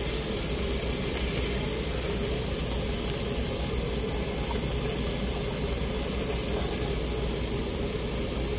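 Pork belly sizzling steadily on a tabletop Korean barbecue grill, an even hiss over a steady low hum.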